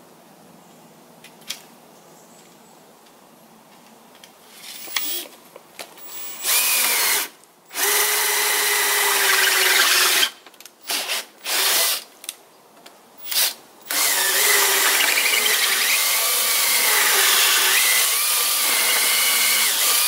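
Cordless drill working into a red alder log frame: several short runs starting about six seconds in, then one long steady run of about six seconds, its pitch wavering as it works.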